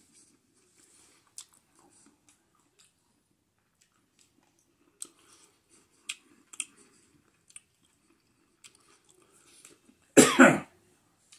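A man chewing food with faint, scattered mouth clicks, then coughing twice in quick succession into his fist about ten seconds in.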